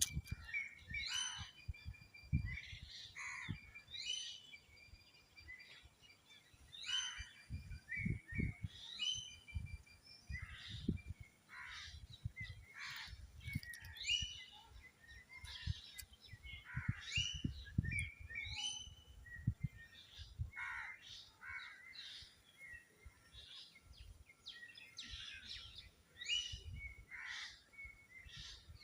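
Small birds chirping and calling over and over in short, quick notes, with frequent soft low bumps underneath.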